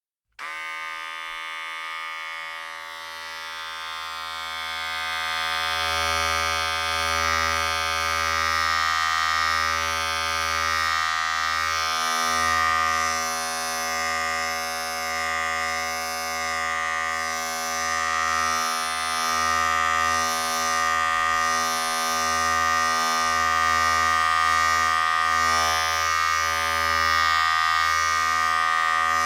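Electric razor switched on about half a second in, then buzzing steadily, its level swelling slightly over the first few seconds and wavering a little.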